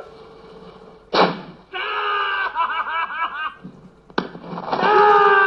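Two handgun shots about three seconds apart, each followed by excited screams of delight and laughter.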